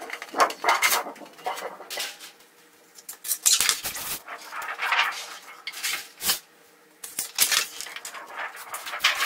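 Large, thin plastic optical film sheets from an LED TV backlight being lifted and peeled off one after another, rustling and crackling in irregular bursts.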